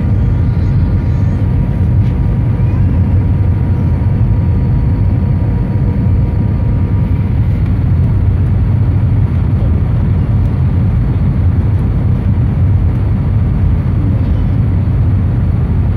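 Steady cabin noise inside an Airbus A319 in flight: a deep, even rumble of engines and airflow, with faint steady whines above it.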